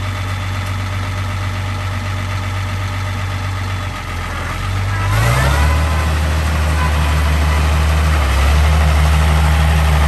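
International Farmall 706 tractor's six-cylinder diesel engine running at a low, steady speed as the tractor is driven, then rising in pitch and getting louder about five seconds in as it is throttled up, holding at the higher speed.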